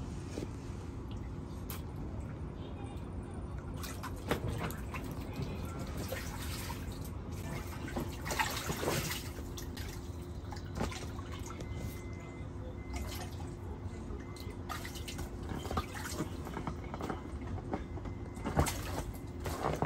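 Water dripping and splashing in a child's inflatable paddling pool as a toddler plays in it, over a steady low hum, with louder splashes about eight seconds in and near the end.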